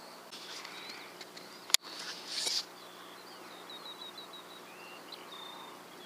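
A single sharp crack of a .22 LR rifle shot about two seconds in, followed about half a second later by a short noisy burst. Small birds chirp and sing throughout.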